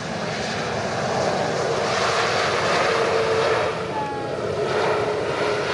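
Airliner's engines heard as a loud rushing noise, swelling over the first couple of seconds and then holding steady, with a faint steady whine running through it.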